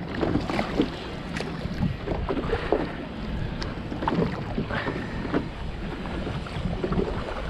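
Wind on the microphone and water around a small boat, with scattered knocks and clicks from handling gear on board.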